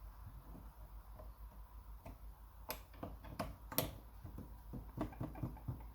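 Scattered small clicks and light knocks of a handlebar bracket being handled and fitted back on over the new heated grip, the sharpest a little under three and four seconds in and a quicker run of small clicks near the end, over a faint low hum.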